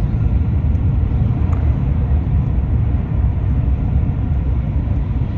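Steady low rumble of a car in motion, road and engine noise heard from inside the vehicle.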